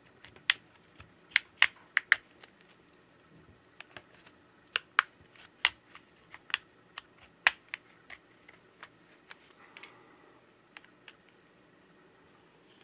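Plastic snap clips of a Samsung Galaxy A32 5G's middle case popping free as a plastic opening pick is worked around the frame edge: a string of sharp, irregular clicks.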